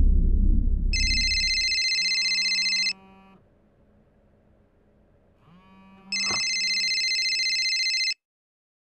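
Smartphone ringtone: two electronic ring bursts of about two seconds each, about three seconds apart, with a click just after the second begins. A car's low rumble fades away in the first two seconds, and the ringing cuts off suddenly near the end.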